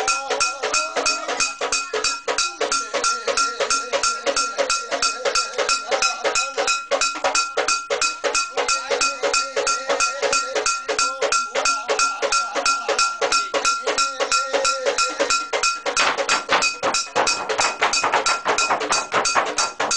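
Mentawai ceremonial dance percussion: fast, even strikes about four a second with a steady metallic ringing tone through them, changing in texture near the end.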